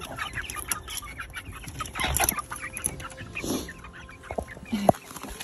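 Young chickens (pullets) clucking and calling in short notes, mixed with scattered knocks and rustling. There is a sharp knock near the end.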